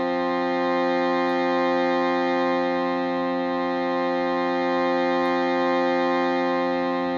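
Shruti box and crystal singing bowl sounding a sustained drone: many notes held steadily together, swelling gently in loudness.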